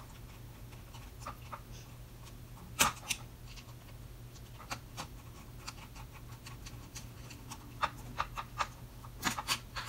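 Sporadic light clicks and taps of a flathead screwdriver and cordless drill parts being handled on a workbench, a few at a time, over a low steady hum.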